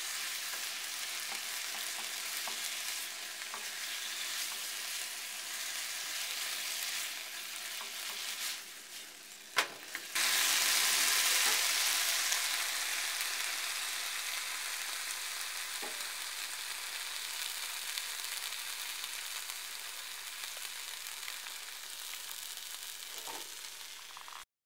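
Pork, onion and kimchi sizzling as they stir-fry in a frying pan, stirred with a wooden spatula. A sharp knock about ten seconds in, after which the sizzle is louder and then slowly fades.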